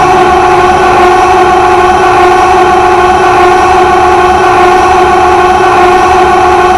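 Hundreds of overlapping loops of Carl Wheezer's cartoon 'ahhh' voice clip, piled into one loud, steady, droning wall of sound with no break.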